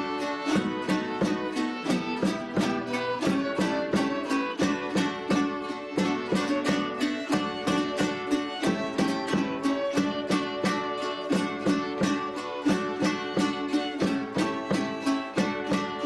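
Venezuelan Andean string ensemble playing: cuatros and guitar strummed in a quick, even rhythm of about four strokes a second, with a violin over them.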